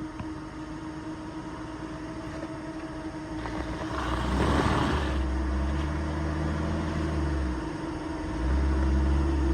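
Off-road vehicle engine running on a trail, getting louder about four seconds in with a brief rush of noise, then pulling harder in two surges with a short let-off between them near the end.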